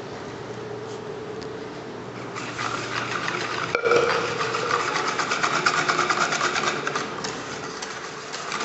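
Lassi pouring into a plastic bowl, then a wire whisk beating buttermilk and gram-flour batter in the bowl: fast, even scraping strokes of the whisk against the bowl, with one knock about four seconds in.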